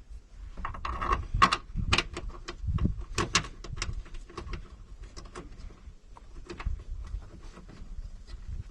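Irregular clicks, taps and clunks of intake parts and hardware being handled and fitted by hand in the engine bay, busiest from about one to three and a half seconds in.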